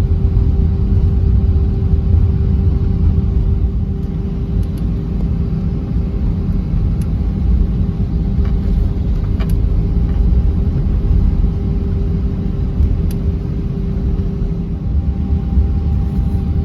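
Cabin noise inside an Airbus A319 taxiing to the runway: a steady low rumble of engines and rolling wheels, with a steady hum tone running through it.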